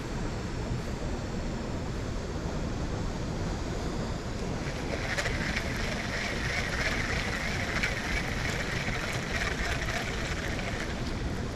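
Steady wind and water rush, and from about five seconds in a baitcasting reel whirring as its handle is cranked to retrieve line, stopping shortly before the end.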